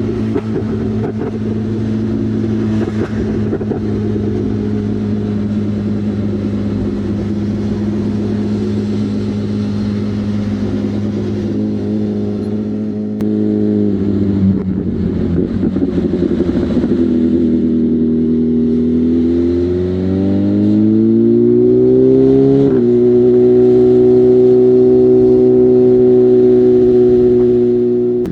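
BMW M1000R's inline-four engine through a genuine SC Project S1 exhaust, ridden on the road: a steady cruise, then the revs climb under acceleration for a few seconds about two-thirds of the way in, change with a gear shift, and hold a higher steady note before easing off near the end.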